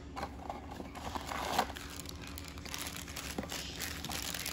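Crinkling and tearing of a toy blind box's packaging as it is opened by hand, irregular and crackly, a little louder about one and a half seconds in.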